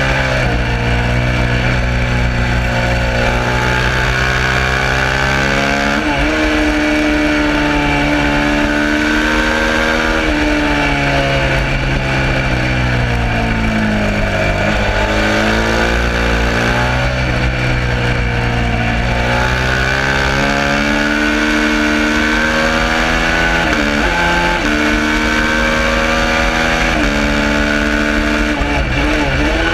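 Suzuki SV650 race bike's 645 cc V-twin at racing speed, revving up through the gears with several sudden drops in pitch at the upshifts. Around the middle the revs fall away as it slows for a corner, then it climbs again, with a few more quick dips later on.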